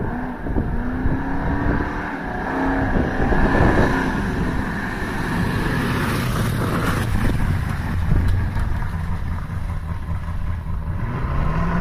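A 1932 Ford coupe hot rod with open side-exit exhaust headers driving past and pulling away, its engine note rising and falling as it is revved.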